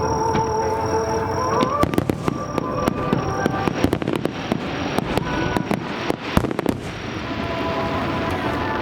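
Fireworks going off: a rapid run of sharp bangs and crackles for about five seconds, starting about two seconds in, over steady background music.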